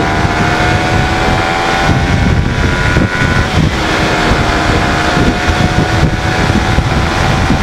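Suzuki Raider 150 FI's single-cylinder engine accelerating hard from about 60 km/h in third gear, its pitch climbing steadily; about three and a half seconds in the pitch drops as it shifts up to fourth, then climbs again. Heavy wind rumble on the microphone runs underneath.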